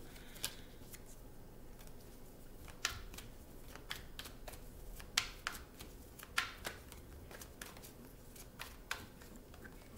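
A deck of tarot cards shuffled by hand: soft, irregularly spaced snaps and taps of the cards, a dozen or so.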